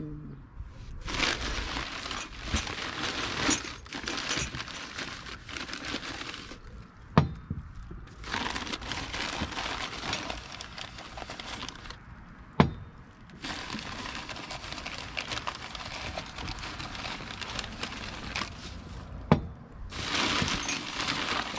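Paper packing crinkling and rustling in long stretches as glasses are unwrapped and handled, with a few sharp knocks or clinks in between.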